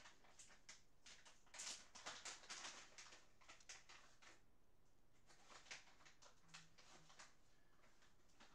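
Near silence with faint rustling and soft clicks, in a spell about two seconds in and again near six seconds: kittens shifting about on blanket bedding in a cardboard box.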